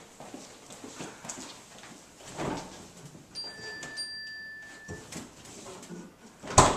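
Refrigerator door being opened and then shut, closing with a single sharp thump near the end, amid light footsteps and movement.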